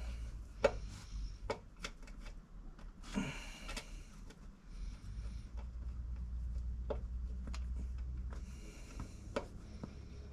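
Hands working on amplifier wiring connections: scattered small clicks and knocks with a short rubbing sound about three seconds in, over a low steady hum.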